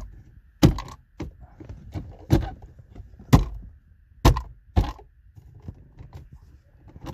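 A plastic BMW dashboard trim panel being pressed and knocked by hand onto its press-fit clips: a string of about seven sharp knocks and clicks, stopping about five seconds in.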